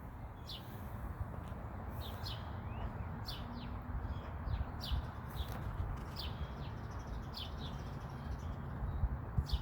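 Small birds chirping: a dozen or so short, high, downward-sliding chirps at irregular intervals, over a steady low background rumble.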